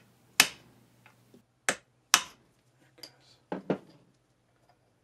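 Hammer blows on a steel pin punch, driving tapered pins out of a lathe turret tailstock: three sharp metallic strikes in the first couple of seconds, with a few lighter taps between them, then some small metal clicks and clinks.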